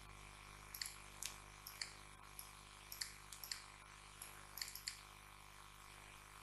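Computer mouse clicking, about ten faint, sharp clicks spaced irregularly, over a steady low electrical hum.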